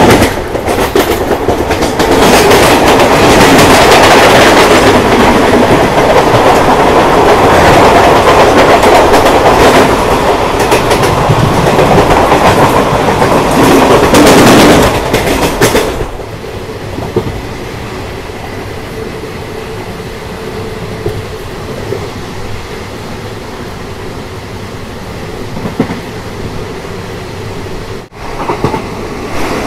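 Indian Railways train running on the track with a clickety-clack. It is loud for about the first fifteen seconds, then drops abruptly to a quieter, steady running noise.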